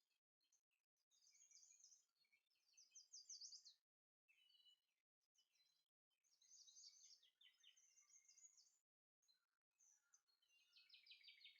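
Faint birdsong: bursts of rapid, high chirping trills, broken several times by brief gaps of complete silence.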